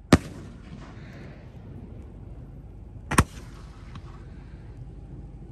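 Aerial firework shells going off: two sharp bangs about three seconds apart, the first right at the start.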